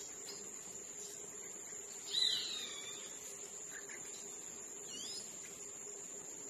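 Steady high-pitched insect trill with birds calling over it: a swooping whistled call about two seconds in, the loudest sound, and a shorter rising whistle near five seconds.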